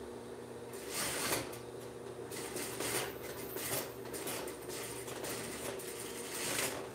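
Sheer fabric and horsehair braid rustling as they are handled and guided at the sewing machine, several brief rustles over a faint steady hum.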